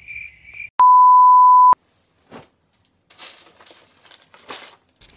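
Two quick high chirps, then a loud steady electronic beep of one pitch lasting about a second that cuts off sharply. After a short gap, soft rustling and crinkling of clothes and plastic packaging being handled.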